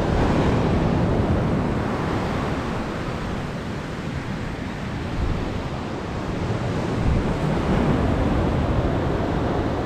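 Surf washing onto the beach, swelling and easing, with wind buffeting the microphone.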